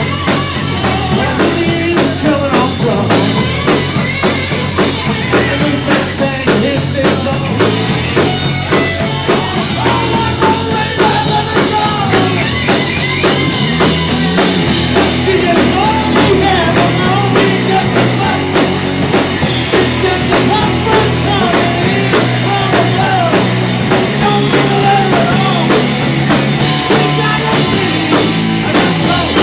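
Live rock band playing an instrumental passage: drum kit keeping a steady beat under electric guitar and bass, with a bending lead line over the top.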